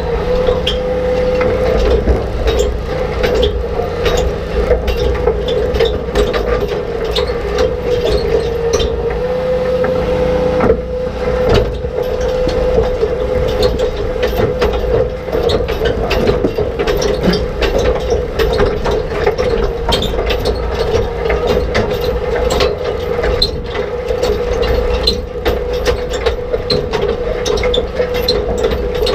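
Old reel-type rock picker at work behind a tractor: a steady mechanical hum and grind with frequent irregular knocks and clatters as rocks, dirt and stalks are swept by the tined reel against its steel basket.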